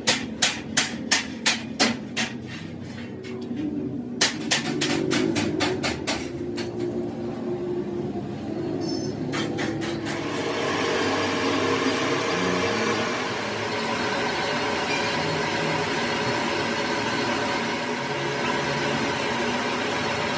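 Hammer striking metal in quick runs of blows, about three a second, through the first half. About halfway in, a steady rushing machine noise takes over and runs on evenly.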